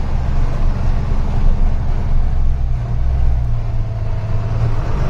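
Truck's diesel engine running steadily as a low drone while the truck pulls uphill, with its engine note shifting about three and a half seconds in.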